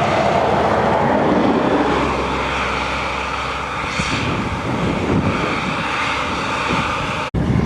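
Steady engine drone with wind rushing over the microphone; the sound cuts out for an instant near the end.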